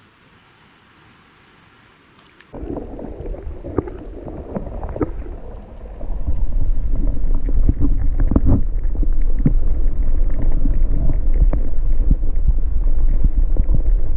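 Heavy wind rumbling against the microphone, with crackling and rustling from handling, starting abruptly a couple of seconds in and growing much louder about six seconds in. Before it, a few faint high chirps over quiet.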